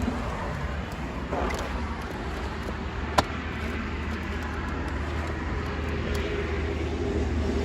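Road traffic passing, a steady rush of car noise with a low rumble, and one sharp click about three seconds in.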